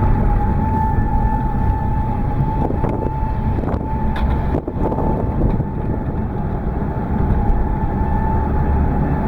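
Outdoor tornado warning siren sounding one steady tone, heard over the low rumble of a car driving.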